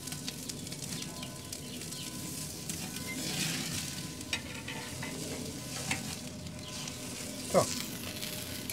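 Steak sizzling as it sears over flaring flames on a Big Green Egg kamado grill's grate, with a few light clicks of tongs. A short falling squeak near the end is the loudest sound.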